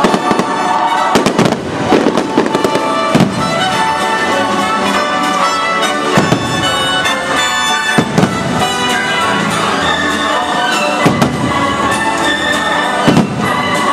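Aerial fireworks shells bursting, with sharp bangs every second or two over loud orchestral show music.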